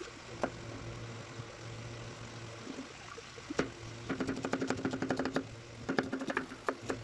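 Kitchen knife slicing a red onion on a cutting board: the blade taps the board once near the start, then in a quick run of cuts through the second half. A steady low mechanical hum runs underneath.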